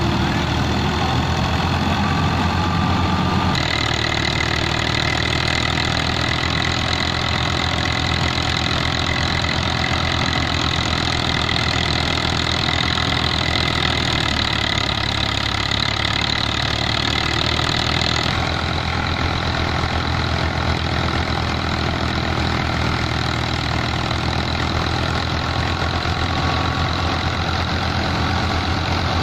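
Fiat 480 tractor's diesel engine running steadily under load, driving a wheat thresher whose drum hums and whirs along with it. The sound changes abruptly twice, a few seconds in and past the middle.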